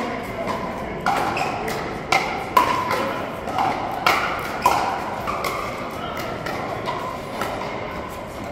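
Pickleball paddles hitting the hollow plastic ball in a rally: sharp knocks every half second to a second, each with a short ringing tail in the hall, fewer and fainter after about five seconds.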